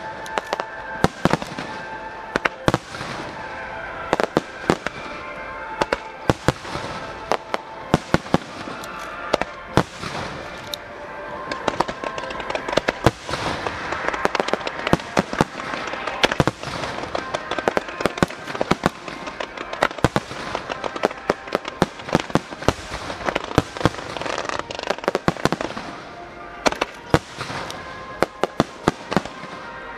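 Fireworks display: many shells bursting in quick, irregular succession, sharp bangs that at times come several a second, with music playing underneath.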